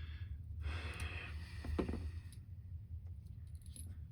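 A man's long breath out, a soft hiss lasting about two seconds, over a steady low hum.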